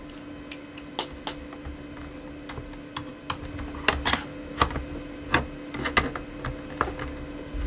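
Irregular light clicks and taps of a laptop's plastic case as it is handled and prised apart by hand at the edges.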